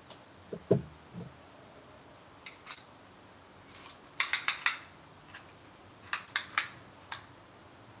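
Light clicks and taps from handling a beaded wire necklace and small metal tools on a work surface. A soft thump comes about a second in, then two quick runs of sharp clicks a little past halfway.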